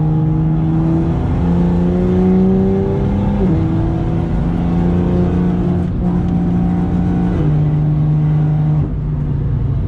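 Straight-piped BMW M2's turbocharged straight-six heard from inside the cabin under power. Its pitch climbs steadily for about three and a half seconds, drops sharply at an upshift, then holds fairly steady. Near the end it eases down in pitch and loudness as the throttle comes off.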